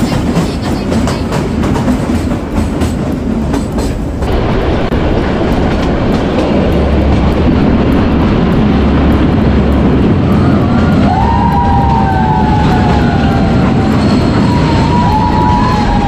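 Narrow-gauge Kalka–Shimla toy train running: a steady rumble and clatter of wheels on rails, with two drawn-out high squeals in the second half, each falling slightly in pitch.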